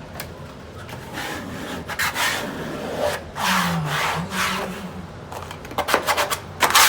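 Wallpaper being rubbed and smoothed against the wall in repeated swishing strokes, which come quicker and louder near the end.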